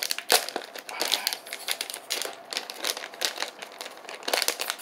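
Plastic LEGO minifigure blind-bag packet crinkling and crackling in the hands as it is squeezed and pulled at to tear it open, in quick irregular crackles.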